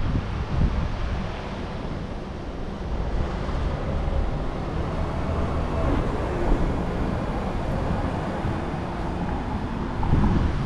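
Busy street ambience: vehicle traffic going by, with wind buffeting the microphone.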